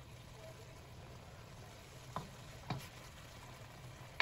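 Shredded beef frying in a wok in marinade that is still reducing, with a faint steady sizzle; a wooden spatula stirring it taps the wok twice a little after two seconds in.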